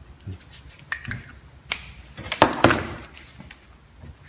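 Handheld stun guns being handled and switched: scattered sharp clicks, with a short, louder cluster of clicks and knocks about two and a half seconds in.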